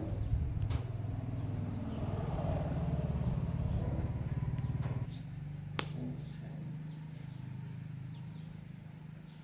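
Low engine hum running steadily, dropping in level about five seconds in, with a single sharp click a little after the middle and faint bird chirps.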